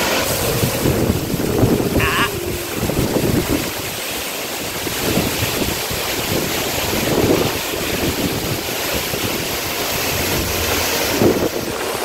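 A powerful waterfall's steady rush of falling water, heard close by, with wind buffeting the microphone in uneven gusts.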